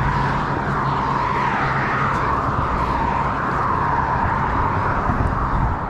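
Road traffic passing: a steady noise of tyres and engines that swells and eases as vehicles go by.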